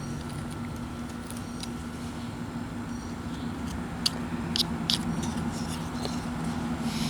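Carving knife whittling wood in short, sharp slicing cuts, several close together around the middle, over a steady low hum.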